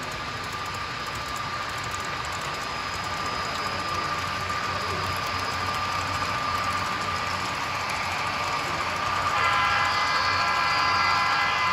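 HO-scale Union Pacific model diesel locomotives running past on the layout, a steady mechanical running sound. About nine seconds in, a horn sounds, one steady blast of about two seconds.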